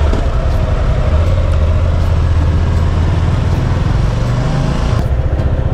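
Motorcycle engine running steadily while riding, with wind rushing over the microphone. The rushing eases about five seconds in.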